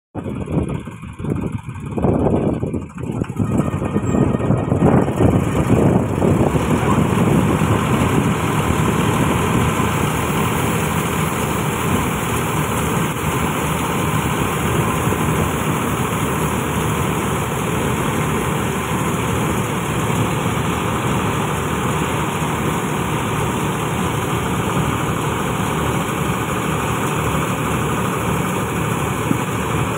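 Combine harvester running with its unloading auger discharging paddy grain onto a heap. The noise is uneven for the first few seconds, then settles into a steady run.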